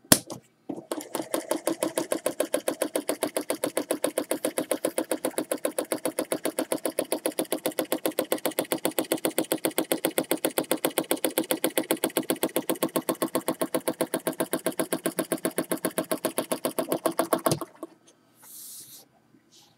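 Model horizontal mill engine powered by a single solenoid running, the solenoid clacking in a fast, even rhythm of clicks. It starts with a click about a second in and cuts off suddenly near the end.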